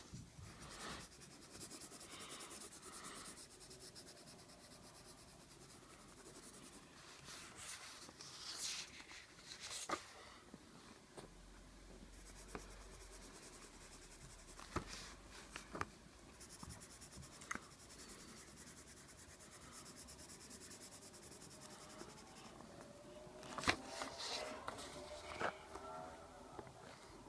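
Colored pencil scratching softly across paper in stretches of shading, with scattered small taps and clicks. Near the end comes a louder cluster of knocks and rustling as the paper is moved.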